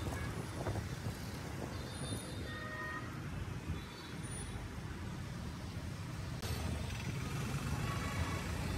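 Busy urban road traffic heard from a moving vehicle: a steady low rumble of engines and tyres. A short pitched tone sounds about two and a half seconds in.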